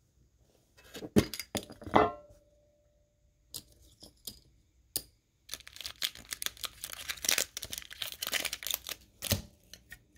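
Metal Pokémon mini tin being handled and opened, with a few sharp clicks and knocks about one to two seconds in, then several seconds of crinkling and tearing of the foil and plastic packaging inside it.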